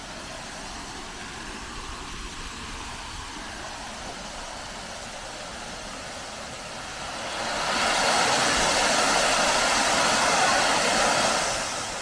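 Waterfall rushing as a steady hiss of falling water, swelling louder for a few seconds past the middle and easing back near the end.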